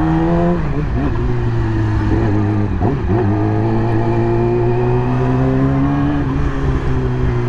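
2020 Yamaha YZF-R6's inline-four engine running at low revs in traffic. Its pitch dips sharply twice, about half a second in and around three seconds, with throttle changes, then rises slowly and eases off near the end.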